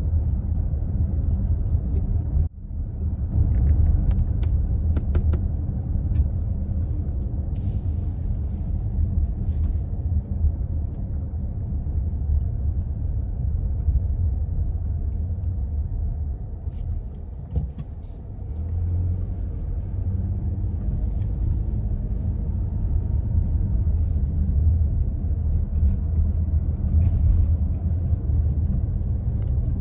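Steady low rumble of road noise from a car driving along, heard from inside it, with a brief dropout about two and a half seconds in.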